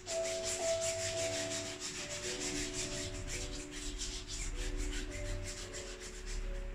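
A sponge rubbing and dabbing acrylic paint onto a stretched canvas in quick repeated scratchy strokes. Soft background music with held notes plays underneath.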